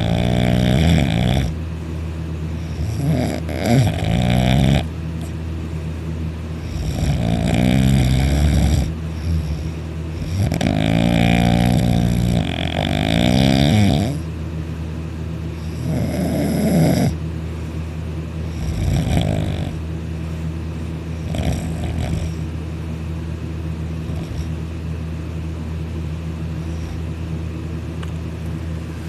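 Loud snoring from a sleeper breathing with his mouth open, one snore about every three to four seconds over a steady low hum. The snores get shorter and fainter after about the middle and die away near the end, leaving only the hum.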